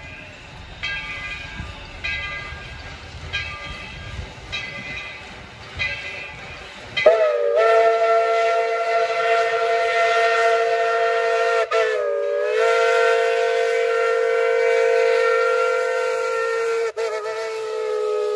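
Steam locomotive bell ringing slowly, about one stroke every 1.2 seconds. About seven seconds in, the locomotive's steam whistle opens in a long, loud blast of several tones sounding together. The blast sags briefly in pitch midway and breaks off for an instant near the end.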